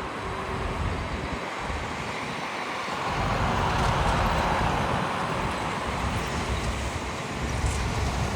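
Four-engine Airbus A380 jet noise: a steady rushing sound that grows louder about three seconds in, with a deep rumble coming in underneath.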